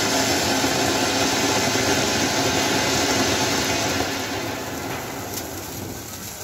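A ground firework burning with a steady rushing hiss of sparks that slowly dies away near the end.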